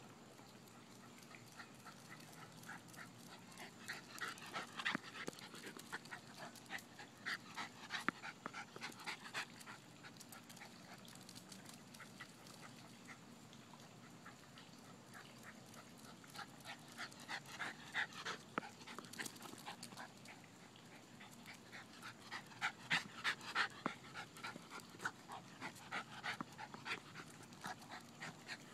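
A dog panting quickly in several spells, loudest near the end.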